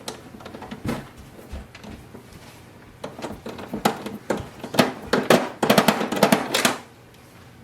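A Phillips screwdriver driving a screw into the plastic printer housing: a run of quick clicks and scrapes, sparse at first, then dense and loudest in the second half, stopping shortly before the end.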